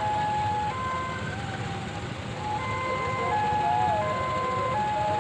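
Electronic warning chime of a railway level crossing: a looping tune of held beeps stepping between a few pitches, sounding while the barrier is down for an approaching train, over a low rumble of traffic.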